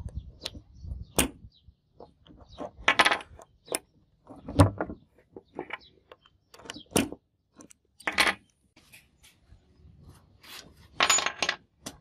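Brass key being pushed into and turned in a handmade steel padlock: irregular sharp metal clicks and short scrapes.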